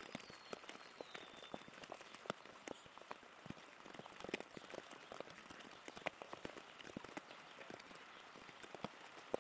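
Rain dripping onto leaves and surfaces: a soft, irregular patter of drops and small ticks, with a faint high whistle falling in pitch about a second in.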